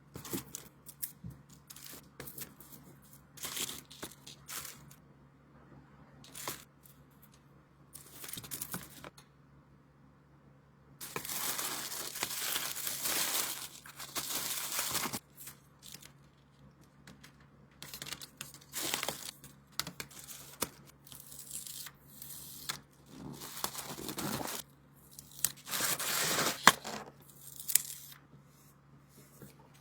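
Hand-packing an order of label stickers: irregular tearing, peeling and crinkling of paper and plastic packaging, with a longer continuous tear about eleven seconds in and another near twenty-six seconds.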